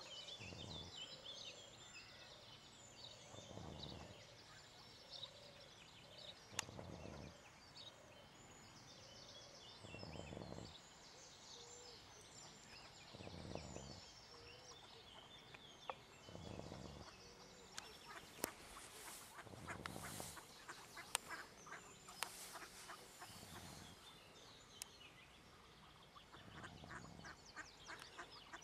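Faint, rhythmic snoring, one slow breath about every three seconds, under the soft quacking and chattering of mallards feeding on the water.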